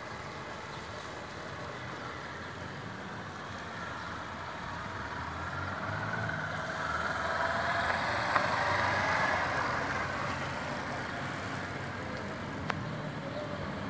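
Small street motorcycle running at low speed, getting louder as it comes near, loudest about eight to nine seconds in, then fading a little as it turns away.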